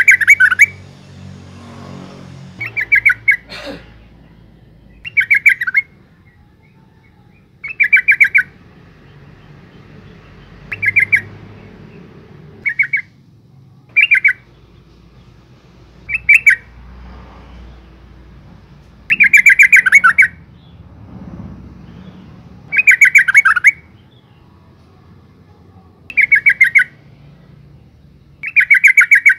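Female yellow-vented bulbul calling: short bursts of rapid chattering notes, repeated about a dozen times every two to three seconds. This is the call of a female used as a lure to draw males into singing.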